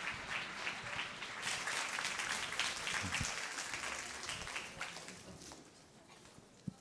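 Audience applauding, the clapping dying away over the last second or two.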